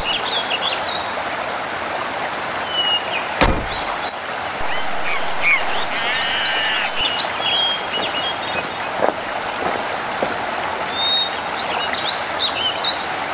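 Steady rush of a small river over rocks, with scattered bird chirps. One heavy knock about three and a half seconds in, an axe striking wood, and a few lighter knocks later on.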